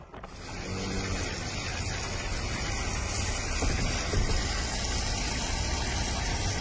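Steady rushing roar of a flooded river running high under a bridge, with wind buffeting the microphone in low rumbles.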